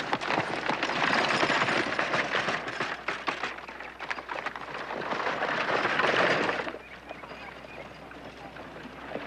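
Horse-drawn wagon setting off: a clatter of hooves and rattling wheels that drops away sharply about two-thirds of the way through.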